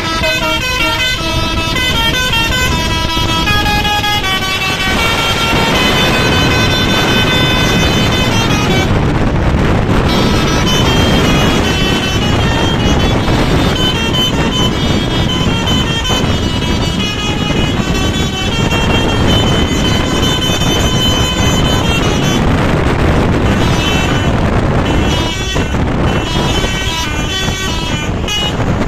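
A Basuri telolet multi-tone bus air horn playing its tune over and over: quick stepping notes, then longer held notes, with short breaks about nine seconds in and again a little after twenty seconds. A steady low rumble runs underneath.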